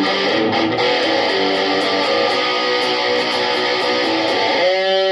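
Electric guitar playing a line of sustained notes, then a held chord about four and a half seconds in.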